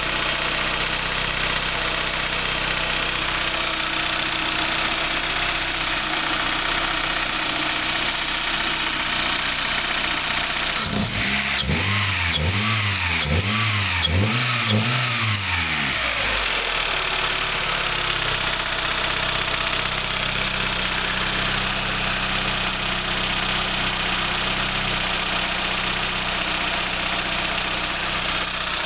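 Car engine idling steadily, blipped up and down in a quick series of about five revs around the middle before settling back to idle.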